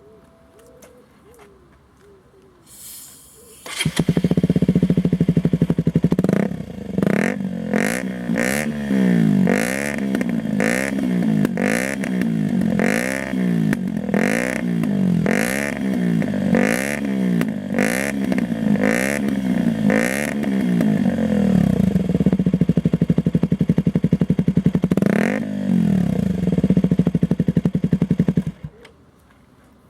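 KTM 125 Duke's single-cylinder four-stroke engine through an aftermarket sport exhaust: it starts about four seconds in and settles to idle. It is then blipped repeatedly, about once a second, before idling again. After one more rev it is shut off near the end.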